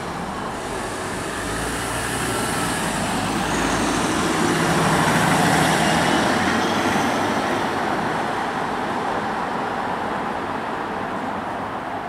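A car driving past close by: engine and tyre noise builds over a few seconds, is loudest about five to six seconds in, then slowly fades into steady street traffic noise.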